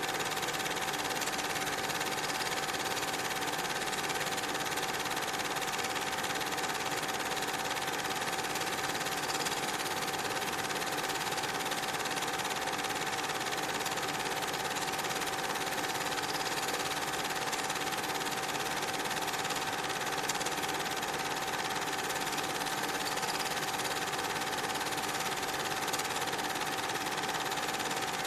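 Steady mechanical whirr with a constant high-pitched hum, unchanging throughout.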